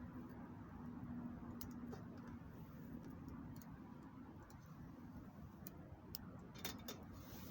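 Wood fire crackling faintly, with irregular small pops and ticks over a low steady rumble, and a brief cluster of pops near the end.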